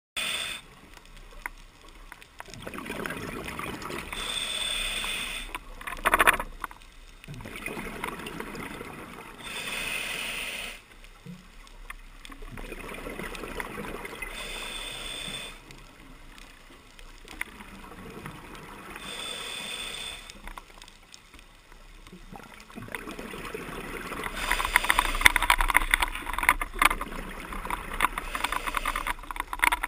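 Scuba diver breathing underwater through a regulator: an inhaled hiss and a gurgle of exhaled bubbles take turns every few seconds. Over the last few seconds it grows louder and crackly.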